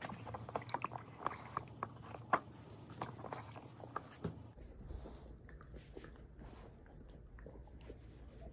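Nova Scotia duck tolling retriever gnawing on a Planet Dog Snoop treat-puzzle ball, teeth clicking and crunching against it in quick, irregular strokes. The chewing is busiest in the first half and thins to fewer, fainter clicks after about four and a half seconds.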